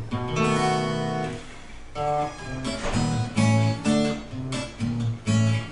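Twelve-string acoustic guitar playing a song's instrumental introduction: one chord is left ringing for about a second, then chords are strummed in a steady rhythm.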